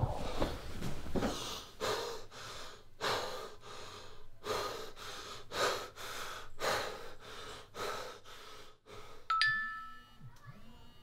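A man panting hard, gasping for air in quick heavy breaths about two a second, as he wakes with a start. Near the end a short electronic chime sounds from a mobile phone.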